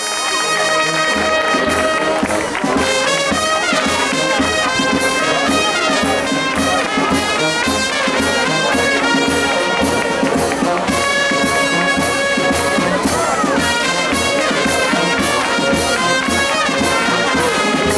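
Brass band playing a tune with trumpets and trombones over a steady drum and cymbal beat, about two beats a second.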